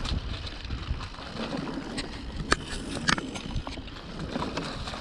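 Mountain bike rolling over a dry, slippery dirt trail: tyres crunching on the surface and the bike rattling, with a few sharp clicks about two to three seconds in.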